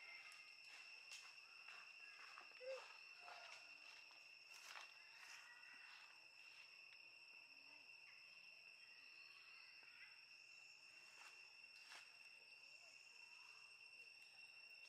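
Faint, steady insect drone: a high continuous note with a second one above it. Scattered small clicks and rustles, and one brief soft squeak about two and a half seconds in.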